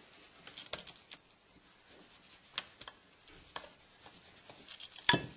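Hand tools rubbing and scraping on leather, with scattered small clicks and a sharp knock about five seconds in.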